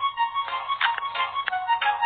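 Background music: a quick, bright plucked-string melody with rapid repeating notes.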